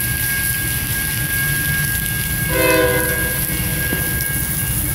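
Steady rain, with one short blast of an approaching CSX GE Dash 8-40CW diesel locomotive's air horn about two and a half seconds in.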